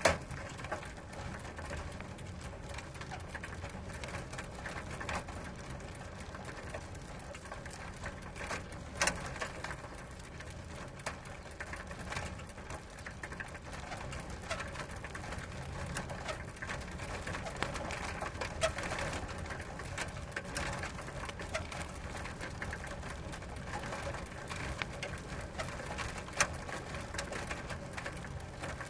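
Bicycle ridden slowly: its chain and drivetrain are clicking and rattling continuously over a steady low rumble, with a few sharper clicks.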